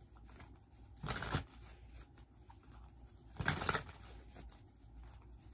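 A deck of tarot cards being shuffled: two short bursts of card noise, about a second in and again about three and a half seconds in.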